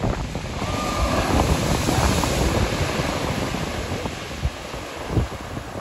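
Sea surf breaking and washing in around the shallows, with wind rumbling on the microphone; the hiss of the breaking wave swells about two seconds in and then eases.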